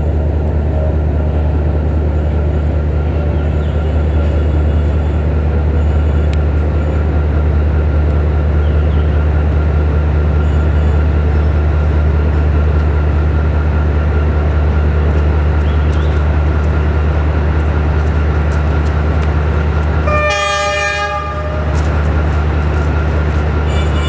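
Diesel-electric locomotive's engine running with a deep, steady drone as it hauls a passenger train slowly over points. About 20 seconds in, its horn sounds one blast of about a second.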